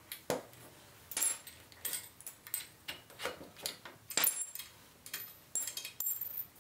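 Steel quick-attach A-frame being unfastened and worked off a compact tractor's front three-point hitch by hand: a string of sharp metal clinks and knocks, several with a short ring, the loudest about four seconds in.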